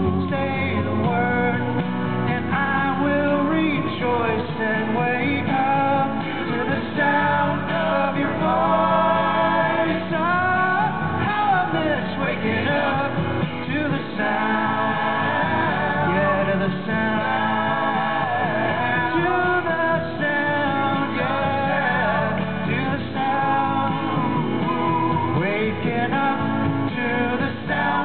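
Live pop-rock band performance: several male voices singing in close harmony over acoustic guitar and band.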